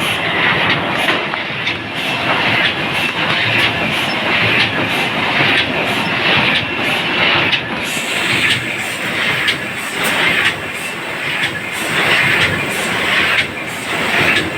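Dingshung corrugated-cardboard laminating machine running, a steady mechanical clatter with a regular beat repeating a little more than once a second. A faint high whine joins in about halfway through.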